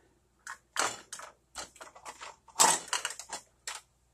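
Plastic measuring cups clattering and clicking together as they are picked up and sorted, a quick irregular run of rattles that is loudest about two and a half seconds in.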